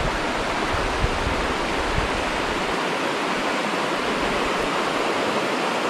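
Shallow mountain-stream rapids: water rushing steadily over rocks, with a low rumble underneath that fades out about three seconds in.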